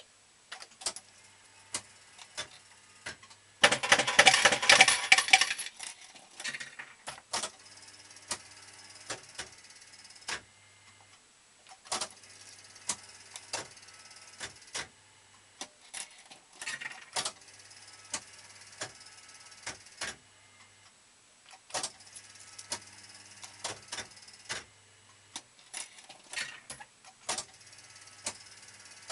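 Super Nudge Gambler 2 fruit machine playing several games: each spin brings a low motor hum of the reels turning and a run of sharp mechanical clicks as the reels and nudge gamble reel stop. About four seconds in, a dense clatter of coins lasting about two seconds is the loudest sound.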